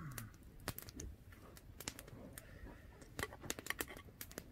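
Wood campfire crackling: irregular sharp snaps and pops, with a quick run of them about three seconds in.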